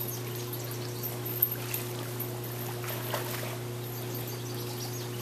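Light splashing and water lapping as a dog swims through pool water, with a few small splashes scattered through, over a steady low hum.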